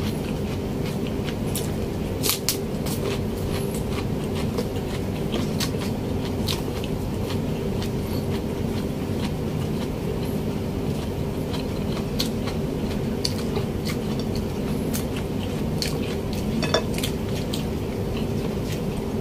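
Close-miked chewing and mouth sounds of a man eating pork adobo and rice with his fingers: scattered wet smacks and small clicks. Under them runs a steady low hum.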